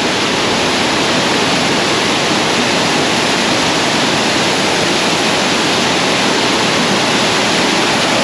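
Waterfall: a loud, steady rush of falling water with no breaks.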